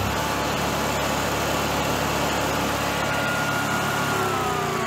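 Air-cooled V-twin engine of a Generac-built Honeywell standby generator, running steadily just after starting; about four seconds in, its pitch begins to fall. The unit has been shutting down on overspeed.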